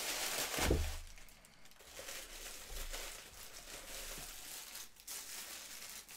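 Packaging crinkling and rustling as a statue part is unwrapped by hand, with a low thump about a second in.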